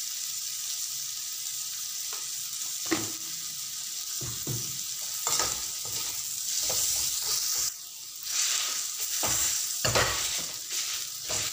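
Potato and paneer stuffing sizzling in a metal kadhai, a steady frying hiss. From about three seconds in, a slotted metal spatula scrapes and knocks against the pan as the mix is stirred. Near the end, a potato masher presses and clinks against the pan bottom in quick strokes.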